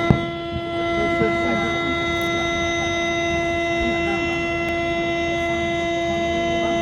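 A long steady tone at one pitch with overtones, held without change, like a horn or siren, over the chatter of a crowd.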